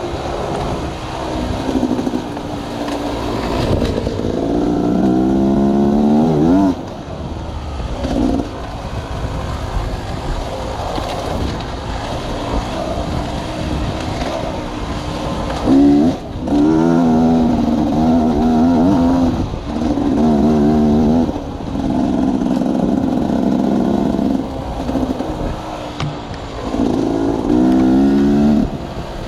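Engine-driven sawmill machinery running, its pitch repeatedly rising and falling, with several louder, steadier stretches.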